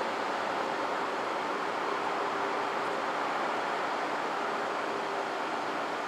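Model 5T outdoor warning siren sounding steadily during a test, heard as a dense, even tone with no rise or fall.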